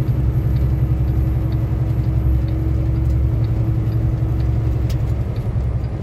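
Inside a semi truck's cab at highway speed: a steady low rumble of engine, tyres and wind, with a faint steady hum that stops about five seconds in.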